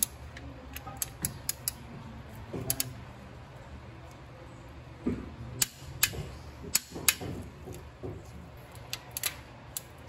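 Irregular sharp metallic clicks and clinks of a wrench and socket on the timing chain guide bolts as they are tightened, over a low steady hum.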